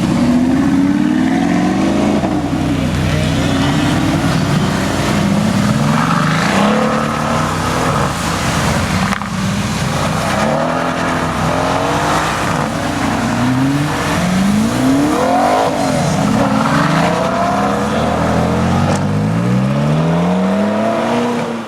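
Mercedes-AMG GT S twin-turbo V8 engines revving and accelerating, with repeated rising sweeps in engine pitch that overlap one another, as from more than one car.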